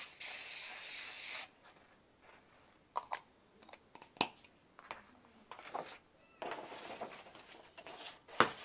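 An aerosol can of 505 temporary fabric adhesive sprays in one steady hiss of about a second and a half. After it come a few sharp clicks and a stretch of rustling as the sprayed felt is handled, with the sharpest click near the end.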